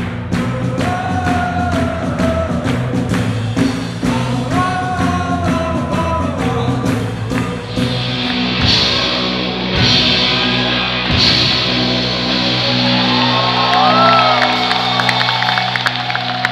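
Live rock band playing: drums keeping a steady beat under sung vocal phrases and electric guitars, then from about eight seconds in the band gets louder and denser.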